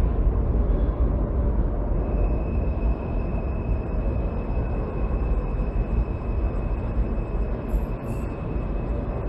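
New York City subway train running through an underground station: a heavy, steady low rumble, with a thin high steady whine coming in about two seconds in. Two short high hisses sound near the end.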